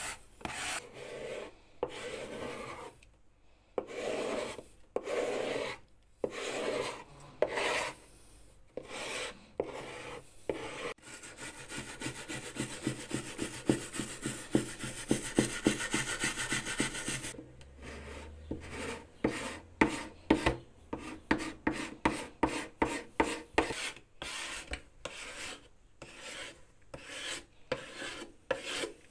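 A plastic scraper scraping old finish and glue off a mandolin's wooden top in separate strokes. This gives way to a wire brush scrubbing the fretboard in a fast run of short strokes, then quick scraping strokes along the wooden body's edge.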